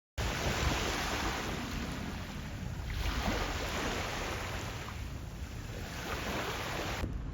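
Waves washing onto a sandy beach, a steady rush that swells and eases, with wind rumbling on the microphone.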